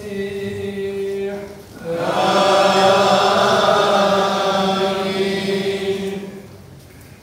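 Male voice singing a Chaldean liturgical chant on long, steady held notes, then a louder, fuller chanted phrase from about two seconds in that dies away about six seconds in.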